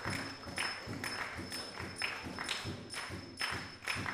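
Spectators clapping together in a steady rhythm, about two claps a second.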